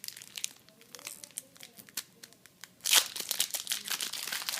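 Foil Yu-Gi-Oh booster pack wrapper being handled with light rustles and clicks, then torn open with a sudden loud rip about three seconds in, followed by steady crinkling of the wrapper.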